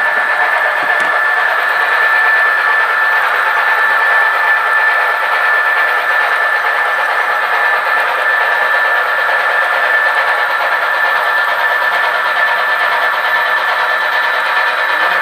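Model train running on the layout track, a steady rolling, mechanical noise with a thin high tone over it.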